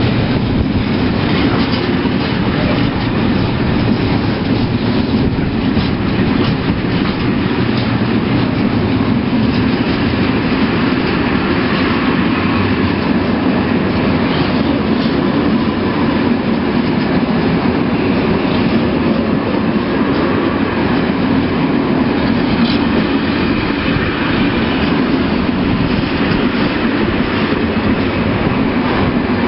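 Freight train of empty flat wagons rolling past close by, a steady loud rumble with the wheels clacking over the rail joints.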